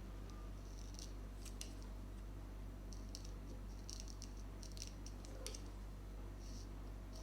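Barber's scissors snipping at a beard in short, crisp snips, some single and some in quick runs of three or four, over a steady low hum.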